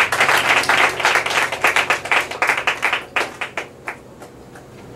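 Audience applauding: dense clapping that thins to a few scattered claps and dies out about four seconds in.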